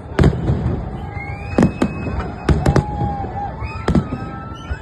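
A fireworks display going off: about seven sharp bangs, several in quick succession near the middle, with a few whistling tones that glide in pitch between them.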